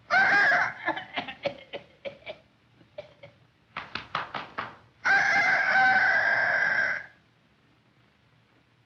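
Chicken clucking and cackling in quick runs of sharp clucks, then one long crowing call of about two seconds, used as the voice of a metal-eating cartoon bird laying an egg.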